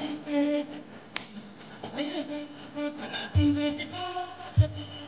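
A voice singing long held notes through a microphone and loudspeaker, broken by short pauses. There is a sharp click about a second in and two deep thuds in the second half.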